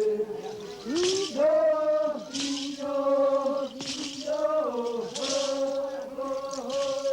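Men chanting together in long held notes that step in pitch now and then, for a ritual dance. A rattle is shaken in a burst about every second and a half, keeping the beat.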